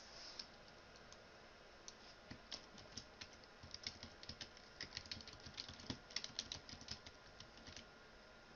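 Faint typing on a computer keyboard: a few scattered key clicks at first, then a run of quick keystrokes from about two seconds in that stops shortly before the end.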